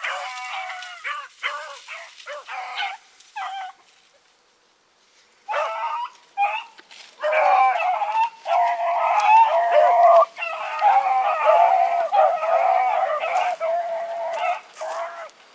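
Pack of young rabbit hounds baying on a rabbit's trail. Scattered cries fill the first few seconds, then a short lull, then several dogs cry together in a dense, overlapping chorus that runs almost without a break: the pack is on the scent.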